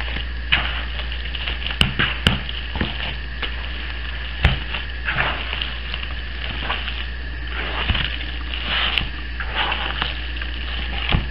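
Gloved hands squishing and folding a wet ground-beef mixture with soup and eggs in a plastic bowl: irregular moist squelching and the rustle of plastic food-safe gloves. A few sharp clicks, with a steady low hum underneath.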